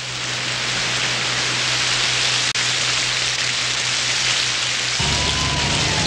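Steady, loud hiss of heavy rain. About five seconds in, a low rumble comes in and a siren starts, its pitch sliding downward.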